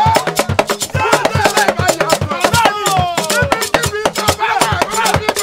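A group of voices singing together over Yoruba hourglass talking drums and rattling percussion, with a fast, steady beat about four strokes a second.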